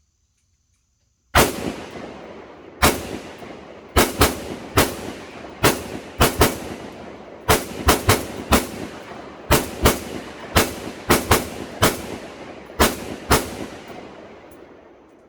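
Kel-Tec RDB bullpup rifle firing its first string of about twenty semi-automatic shots at an uneven pace, some in quick pairs and triples, each with a short ringing echo. All rounds cycle without a malfunction.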